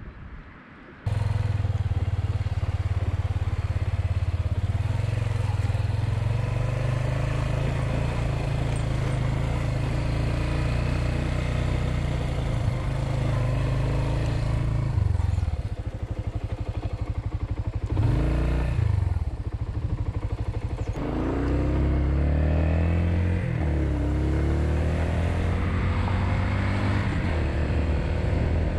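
Suzuki Grasstracker Big Boy's single-cylinder engine running under way, starting abruptly about a second in. The revs drop and change around the middle, then rise in repeated sweeps as the bike accelerates, before settling into a steady run.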